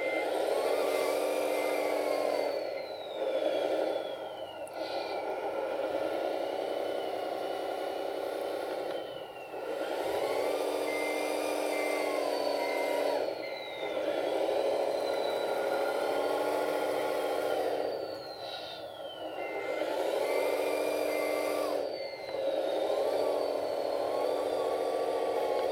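Sound module of a radio-controlled Wedico CAT 966G model wheel loader playing a simulated diesel engine, revving up and dropping back again and again as the loader drives, with a high whine that slides down after several of the revs. Short evenly spaced electronic beeps come three times: at the start, about ten seconds in and about twenty seconds in.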